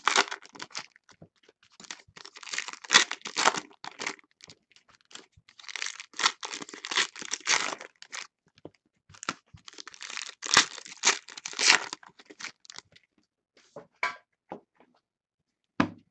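Foil wrappers of 2016 Donruss football card packs being torn open and crinkled by hand, in repeated bursts of crackling. Near the end come a few light clicks and one short knock.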